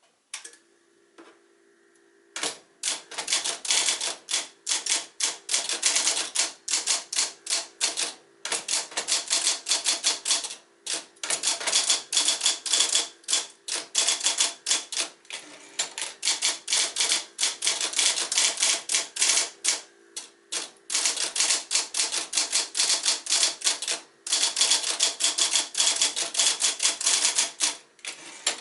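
Sears Electric 1 portable electric typewriter, built by Nakajima, being typed on: fast runs of key strikes broken by short pauses, over the steady hum of its motor. The typing starts a couple of seconds in.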